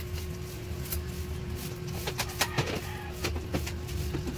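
Metal spoon tapping and scraping against a bowl of flour: scattered light clicks, the sharpest about two and a half seconds in, over a steady low hum.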